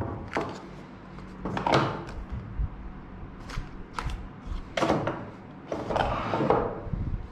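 Handling noises: a series of sharp clicks and light knocks, with a longer rustle about six seconds in, as a smartphone and its box and accessories are handled.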